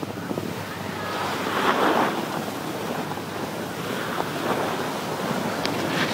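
Wind rushing over the microphone of a camera carried downhill on skis, mixed with the hiss of skis sliding on packed snow, which swells louder about two seconds in and again near the end.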